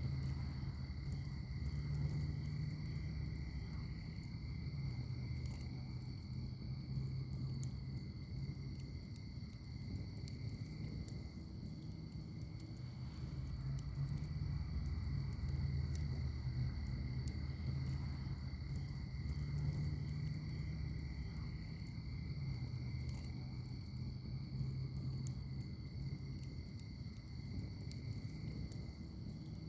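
Wood fire in a firepit crackling, with scattered sharp pops over a low, steady rumble of flame. A steady high insect chorus runs underneath.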